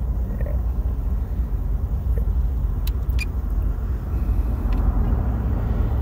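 Steady low outdoor rumble with a few faint clicks.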